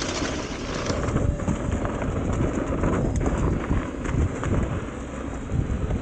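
Mountain bike rolling fast over a dirt trail: wind buffeting the microphone with a low rumble, and tyres and bike rattling over the rough ground in quick irregular clicks.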